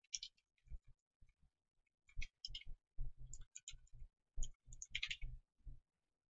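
Typing on a computer keyboard: a few scattered key clicks, then quick runs of keystrokes from about two seconds in.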